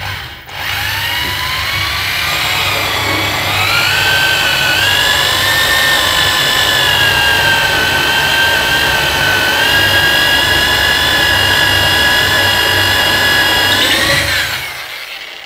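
Electric drill drilling a hole in the wall for a socket box. Its motor whine climbs over the first few seconds, holds steady under load, and winds down near the end.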